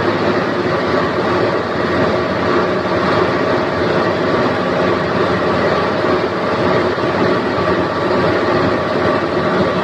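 Diesel engine of an XCMG mobile crane running steadily: a loud, even mechanical drone with a few steady tones over it.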